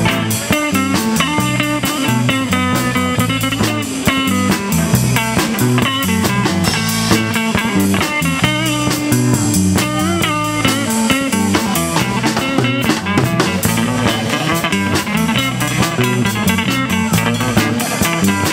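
Blues-rock band playing an instrumental break: a lead guitar line with bent, wavering notes over bass and a steady drum kit.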